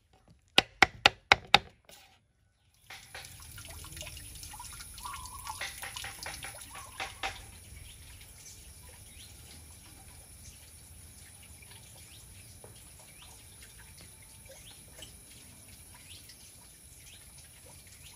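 A kitchen knife chopping soft ripe jackfruit flesh on a wooden cutting board, about five quick strikes. Then outdoor ambience with small birds chirping and some faint clattering and splashing.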